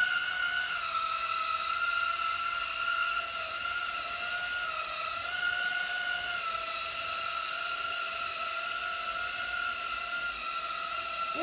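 Small hand-controlled UFO-style toy drone hovering, its propellers giving a steady high whine that wavers slightly in pitch.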